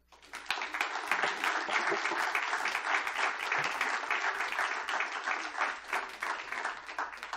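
Audience applauding, the clapping building up about half a second in and thinning out near the end.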